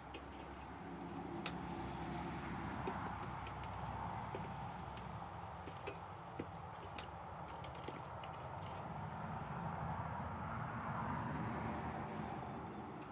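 A few short, high, faint bird chirps over a steady rushing background that swells and fades twice, with scattered light clicks.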